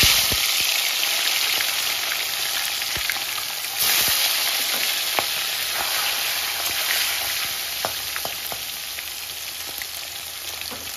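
Fish pieces frying in hot mustard oil in a kadhai: a loud sizzle that starts abruptly as the fish goes in, grows louder again about four seconds in as more pieces are added, then slowly dies down, with a few light taps of a spatula against the pan.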